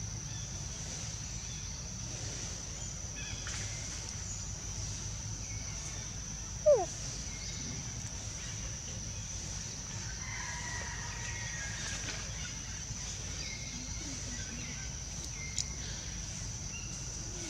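Steady high insect drone over a low outdoor rumble, broken about seven seconds in by one short, loud animal call that falls in pitch.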